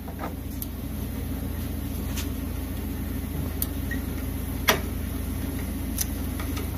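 Hand tools clicking on a bolt and lock nut as a T25 Torx T-handle driver and a socket wrench tighten it, five sharp clicks with the loudest a little past the middle. A steady low rumble runs underneath.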